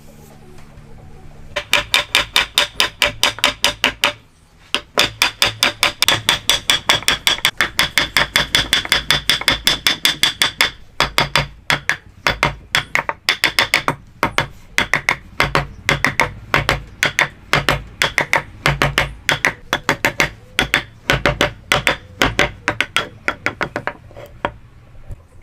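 Steel hammer striking a woodworking chisel in quick, even blows, about six a second, each with a bright metallic ring, as the chisel chops out joint waste. The blows come in runs, with brief pauses about four seconds in and near eleven seconds, and stop just before the end.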